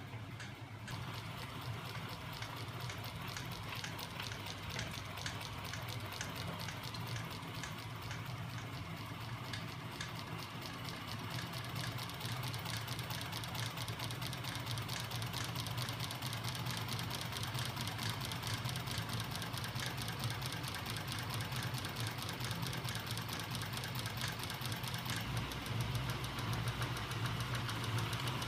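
Homemade magnet-driven reciprocating machine, its DC electric motors turning flywheels and a spring-loaded rocking linkage, running with a fast, even clatter of clicks over a low hum. It grows gradually louder, and the hum gets stronger near the end.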